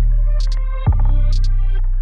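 Electronic background music: a deep bass note restruck about a second in, with pairs of short high ticks over it.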